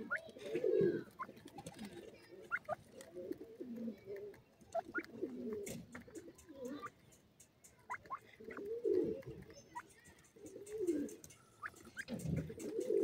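Grey francolins giving soft, low murmuring contact calls while feeding, several short calls spread through, with brief thin high squeaks between them. Faint ticks of beaks pecking at grain can be heard in the middle.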